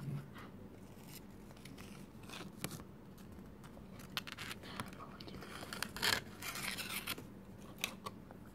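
A sheet of paper rustling and scraping in scattered short strokes as it is passed around a magnetic levitating globe, with a faint steady hum underneath.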